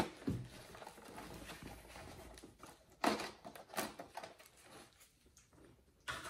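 Clear plastic blister packaging tray handled in gloved hands, with faint rustling and a few sharp plastic knocks, the loudest about three seconds in.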